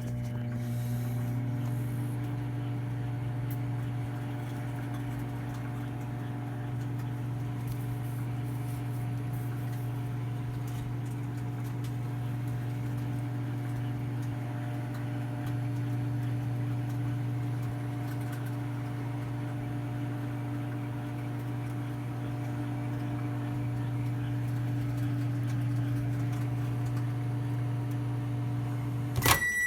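Microwave oven running with a steady low hum. Near the end it cuts off with a click, followed by a high beep.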